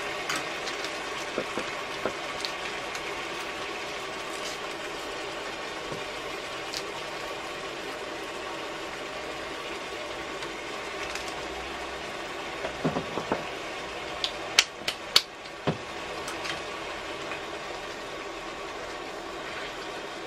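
Onions, mushrooms and oysters simmering in a cast-iron Dutch oven, a steady bubbling hiss. A cluster of sharp clinks stands out a little past the middle.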